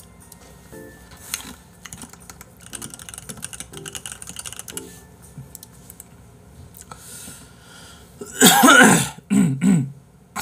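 Ice cubes crunched between the teeth in small, irregular crisp cracks. About eight seconds in, a loud cough and throat clearing follow in two or three short bursts.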